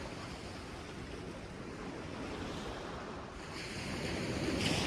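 Sea surf washing onto a sandy beach, with some wind buffeting the microphone. The wash swells louder near the end.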